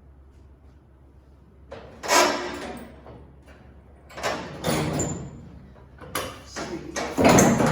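Sheet-metal pickup fender being shifted and worked into line: about four bouts of scraping and knocking metal, each fading out, the last the loudest.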